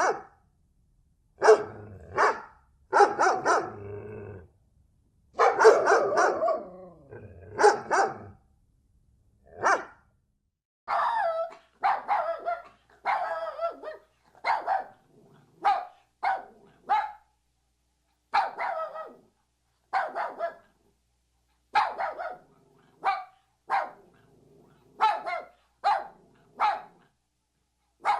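Dogs barking loudly: quick bursts of rapid barks for the first eight seconds or so, then short single barks spaced about a second apart, in runs with brief pauses between them.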